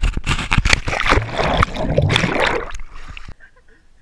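Loud splashing and rushing noise close to the camera, full of crackles, cutting off abruptly a little over three seconds in.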